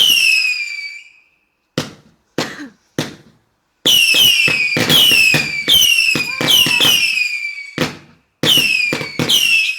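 Multi-shot garden firework going off: a rapid series of shots, most of them a sharp crack followed by a whistle falling in pitch. There are a few plain cracks about two seconds in, then a dense run of whistling shots, then two more near the end.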